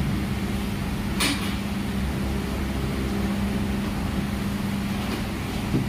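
Steady mechanical hum of workbench equipment, with one short sharp hiss about a second in.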